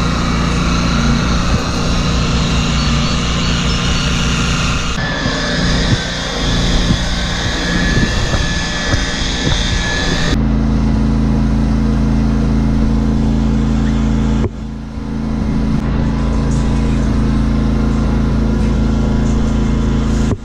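Handheld electric polisher with a foam pad running steadily against a plastic headlight lens during headlight restoration. It is a loud, even motor hum that changes abruptly a few times, at about five, ten and fourteen seconds in.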